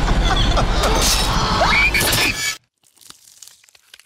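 Loud, dense horror-trailer sound design with a few shrill sliding tones, cutting off suddenly about two and a half seconds in. Then come faint wet crunching and tearing sounds of a scalp being pulled from a head.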